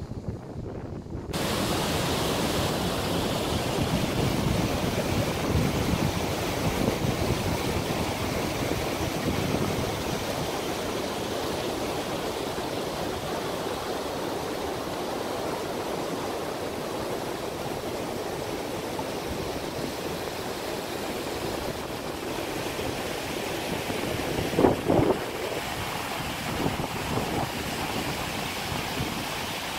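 Steady rushing of glacier meltwater, mixed with wind on the microphone. A short loud bump comes near the end.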